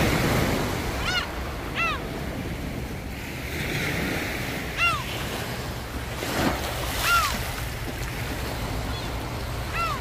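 Small sea waves washing steadily onto a pebbly, rocky shore, the surf swelling and easing. Over it come about five short pitched calls, each rising and falling.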